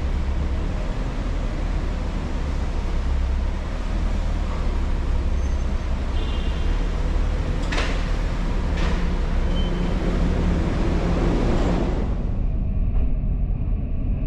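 Steady low rumble of a car driving along a road, with a hiss of road noise above it. There are two short knocks about a second apart around the middle, and near the end the hiss falls away, leaving a duller rumble.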